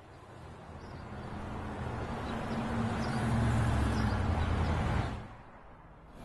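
Street traffic driving past, a tractor-trailer among it: engine hum and tyre noise rise to a peak about three to four seconds in, then die away about five seconds in.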